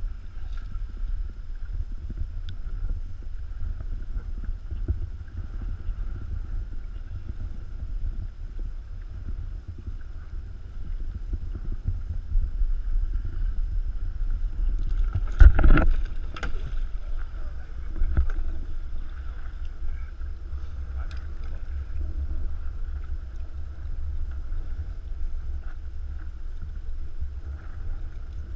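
Steady low rumble of wind and water around a small open boat, with a faint steady hum. About halfway through comes a sharp knock, the loudest sound, followed by a couple of lighter knocks.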